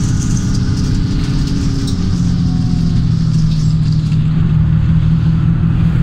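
Hino AK1J bus's diesel engine running steadily on the move, heard from inside the cab with road rumble; its low hum becomes steadier and stronger about two seconds in.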